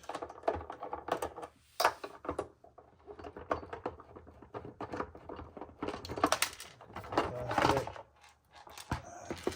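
Irregular clicks, taps and rattles of hand tools on screws and the plastic body panels of a Razor MX650 electric dirt bike, as the Phillips screws holding the bodywork are taken out. The clicking grows busier a few seconds in.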